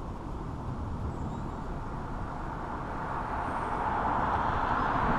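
Road traffic noise: a low, steady rumble of a vehicle with tyre hiss, growing louder as it approaches.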